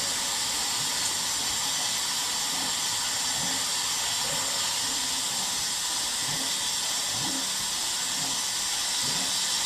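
Steady hiss of mains water flowing through the water heater tank and out of its open drain port, the supply turned on to flush mineral sediment from the bottom of the tank.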